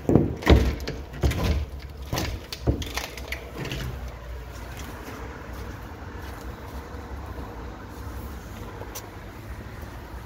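A run of sharp knocks and scrapes against a wooden board and window frame as someone climbs in through a boarded-up window gap, loudest about half a second in and dying out after about four seconds. After that, a steady low rumble of handling noise.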